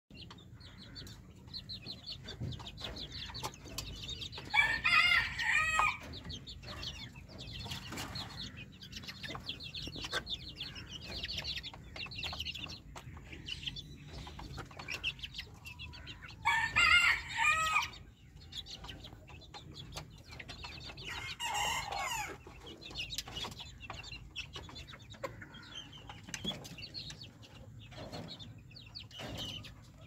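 A pen of chickens keeps up many short, high cheeps and clucks. Three louder, drawn-out calls stand out, about five seconds in, about seventeen seconds in and about twenty-two seconds in.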